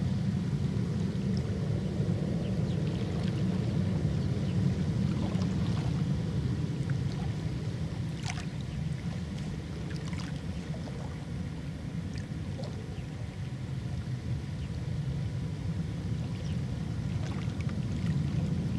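Steady low outdoor rumble by the water, a little quieter through the middle and rising again near the end, with a few faint scattered ticks.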